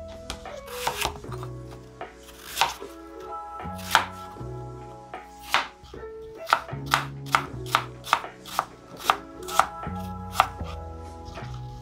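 Knife chopping apples on a cutting board: sharp chops, sparse at first, then coming quickly, several a second, in the second half. Background music with a bass line plays underneath.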